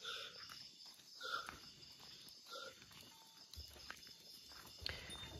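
Faint, steady chirping of night insects, likely crickets. Three short, faint calls come just over a second apart in the first half.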